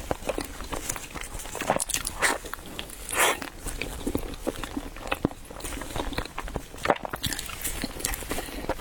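Close-miked eating sounds: someone biting and chewing chilled bread, with irregular soft crunches and mouth clicks.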